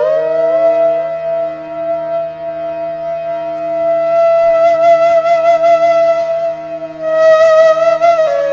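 Background flute music: one long held flute note over a steady low drone, wavering into quicker ornamented notes near the end.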